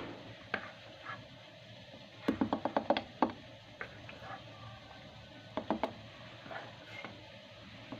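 Glass jar and its lid being handled and screwed shut: a quick run of small sharp clicks a little over two seconds in, a few more just past the middle, and single clicks scattered between.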